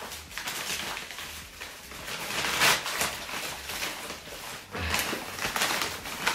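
Plastic courier mailer bag crinkling and rustling as it is handled and pulled open by hand, in irregular bursts.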